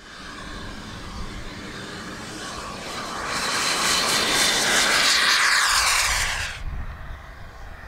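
Model jet turbine engine at high power during a takeoff run, a rushing whine that builds to its loudest as the jet goes past, its pitch sliding. The high part of the sound cuts off sharply near the end.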